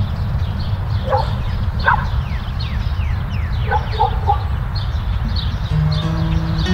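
Short animal yelps, a pair and then a quick run of three, with many quick falling high chirps above them, over a steady low rumble. Held music notes come in about a second before the end.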